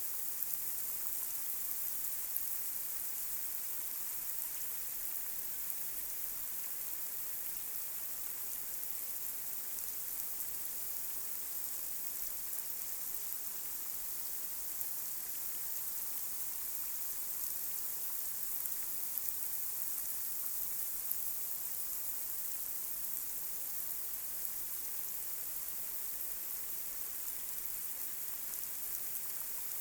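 Light rain falling steadily on a street: an even high hiss with scattered faint drop ticks.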